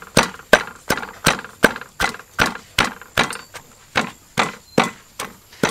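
Wooden pestle pounding garlic and herbs in a mortar: steady, evenly spaced thuds, about three a second.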